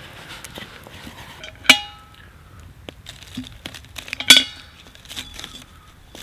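Afghan pressure cooker's metal pot clanking as it is handled over the campfire: two sharp, ringing clinks about two and a half seconds apart, with lighter knocks and clicks between them.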